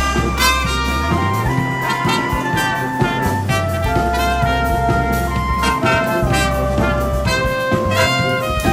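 Small live brass band playing a lively tune: trumpets carry the melody in held notes over a low, sustained bass line.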